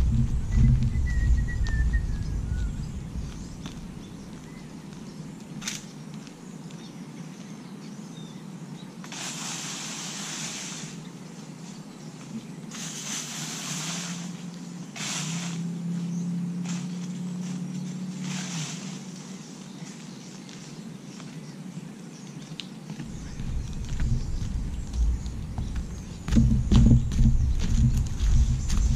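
Outdoor sound with wind buffeting the microphone at the start and again near the end. A few short rushing noises and a low hum come in between, and a single falling bird chirp sounds about a second in.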